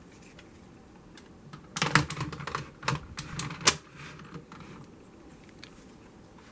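A quick run of sharp hard-plastic clicks and clacks, about a dozen over two seconds, from a toy transformation device being handled. A few faint, short high electronic chirps follow.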